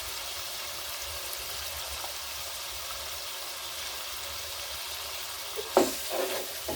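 Onions, tomatoes and green pepper sizzling steadily in hot oil in a pot on a gas burner. A few sharp knocks come near the end as stirring begins.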